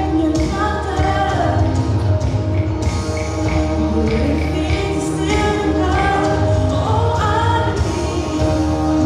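Contemporary worship song: sung melody over instrumental backing with held chords and a steady bass.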